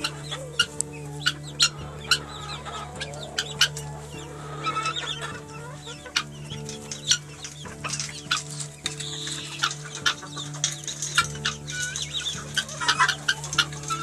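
A flock of chickens clucking as they come out of their coop, with many short sharp clicks and taps among the calls over a steady low hum.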